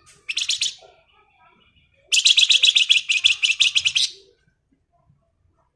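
Bird known in Indonesian bird-keeping as the flamboyan singing its fast buzzing chatter ('ngebren'): a brief burst, then about a second later a two-second rattling trill of about ten notes a second.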